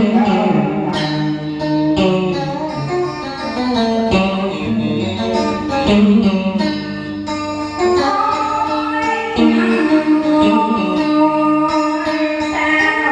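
Music from a Vietnamese ballad: guitar accompaniment under a held, flowing melody line.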